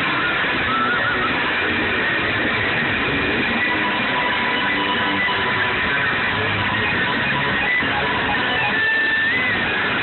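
Rock music led by strummed electric guitar, dense and steady, with a wavering higher melody line over it.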